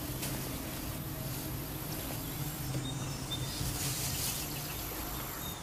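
Insects buzzing and chirring in a grassy field, over a low steady hum.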